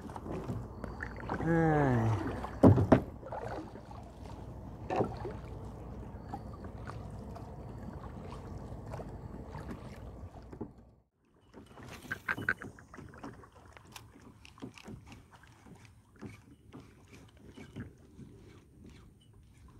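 Kayak on the water: steady sloshing and rustle with scattered knocks against the hull, and a short falling voice-like groan about two seconds in. The sound drops out entirely around eleven seconds, then returns with lighter, scattered ticks and knocks.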